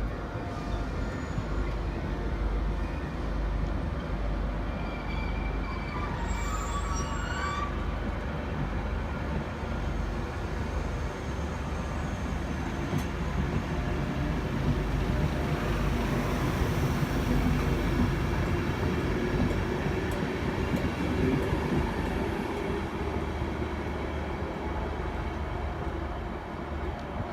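A train running through the station: a steady rumble of wheels and traction with a brief high squealing tone about six seconds in, swelling slightly louder past the middle.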